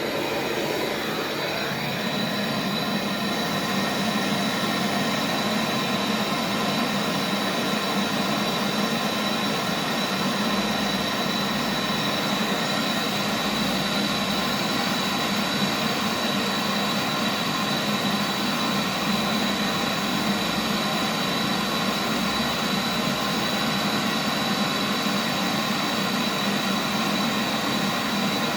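Gas brazing torch burning steadily with a rushing hiss and a thin high whistle, while the filter drier is brazed into the fridge's copper lines.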